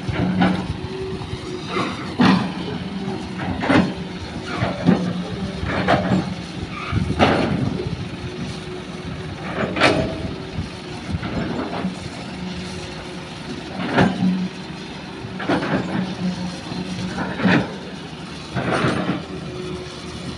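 Hitachi hydraulic excavator's engine running steadily while it digs and loads soil into a dump truck, with irregular clanks and thuds every second or two from the bucket working and soil dropping into the truck bed.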